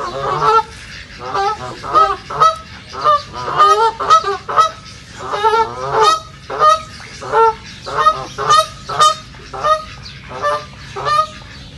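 Ducks quacking in a rapid series of loud calls, about two a second.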